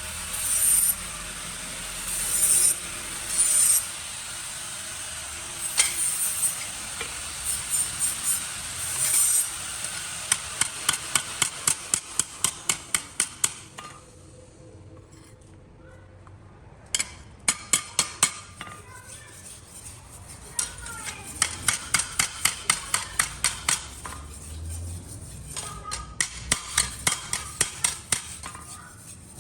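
Hand hammer striking metal in steady runs of blows, about three a second, stopping briefly and starting again several times. In the first seconds there are short bursts of scraping instead.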